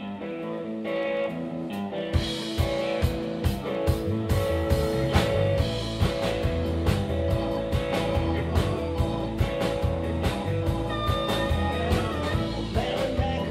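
Live blues band playing an instrumental intro: an electric guitar riff alone at first, then drums with a steady beat and the rest of the band come in about two seconds in, with a harmonica joining near the end.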